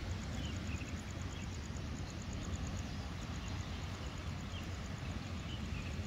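Steady low rumble of wind and distant surf on a rocky seashore, with a few faint high chirps scattered through it.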